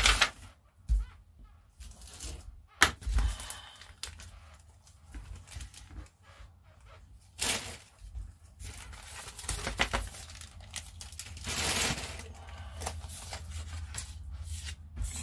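Plastic model-kit parts and packaging being handled: scattered sharp clicks and taps with short bursts of rustling, over a faint steady low hum.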